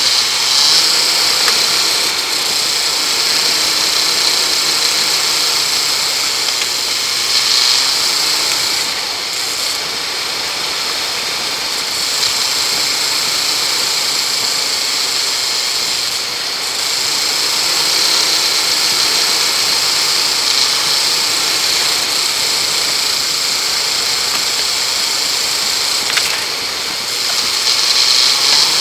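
Land Rover engine running as it drives along a woodland track, its pitch shifting a little with the throttle, over a steady high hiss.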